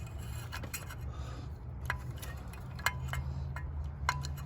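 Light metallic clicks and clinks, a few of them ringing briefly, with some rubbing and scraping, as a new spark plug is started into its threaded hole by hand with a spark plug socket. A steady low hum runs underneath.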